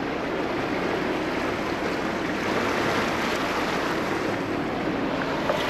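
A motor yacht underway at low speed: a steady rush of water and wind over a faint low engine hum.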